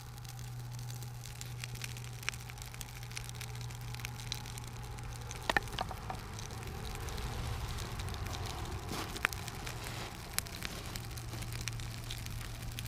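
Campfire crackling, with many small ticks and a few sharper pops over a steady low hum.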